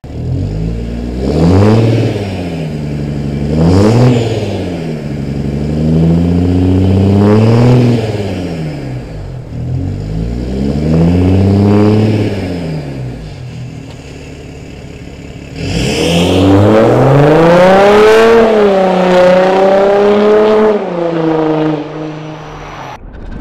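Audi Q7 diesel with a tuned aftermarket exhaust, revved four times while standing, each rev rising and falling away. It then accelerates hard for several seconds, its pitch climbing and dipping a few times.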